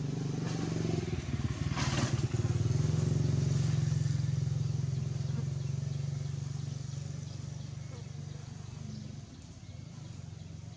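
Low, steady engine hum of a passing motor vehicle, swelling over the first couple of seconds and then slowly fading away.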